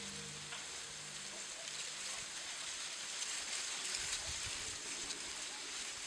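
Wind blowing through dry reeds as a steady, high, hissing rustle. From about four seconds in, uneven low gusts buffet the microphone.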